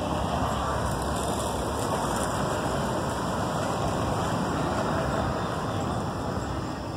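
Steady road-traffic noise, an even rush of passing vehicles with no single engine standing out.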